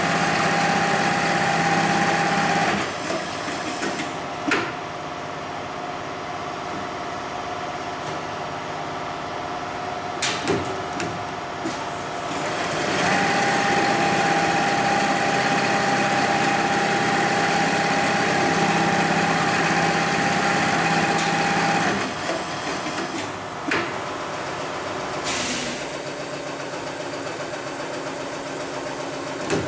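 Heavy-duty programmable pattern sewing machine (Hightex 72600PLK) stitching thick polyester sling webbing. It runs at speed with a steady whine for the first few seconds and again for about nine seconds in the middle, with quieter stretches between that are broken by a few sharp clicks.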